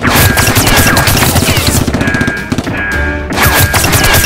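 Dubbed automatic-gunfire sound effects in rapid bursts, mixed with loud action background music.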